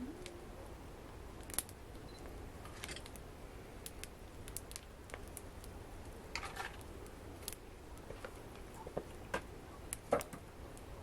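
Wood fire crackling in a fireplace: irregular sharp clicks and pops over a low steady background, with the loudest pop about ten seconds in.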